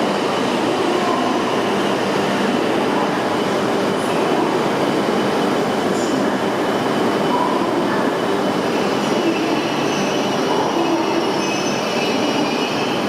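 E5 series Shinkansen train at the platform, a steady loud rail and machinery noise with a low hum. A faint high whine comes in about ten seconds in.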